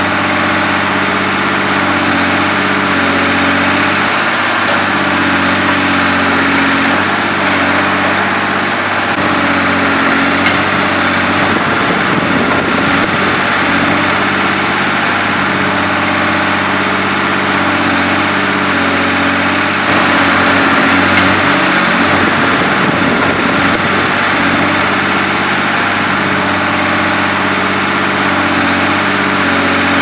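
Motor noise running steadily, its low hum shifting up and down in small steps, with a constant hiss over it.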